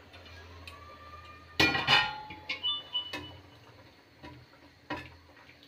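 Steel utensils clinking against a kadhai as paneer cubes are added and stirred into the gravy. There is a loud metallic clank about a second and a half in that rings on briefly, then a few lighter clinks.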